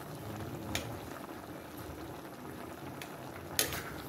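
A pot of coconut milk (gata) with papaya simmering, bubbling steadily. Two sharp clicks come about a second in and near the end.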